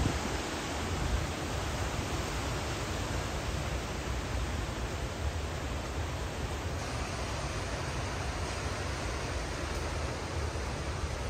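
Steady rush of wind and rain in a thunderstorm, with gusts buffeting the microphone in an uneven low rumble.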